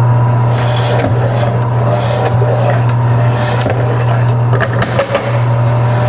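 Electric meat slicer (10-inch, 320-watt) running with a steady hum as meat is pushed through the spinning blade on the carriage. A scraping rasp sounds with each cut, the strongest about half a second in and again at about three and a half seconds.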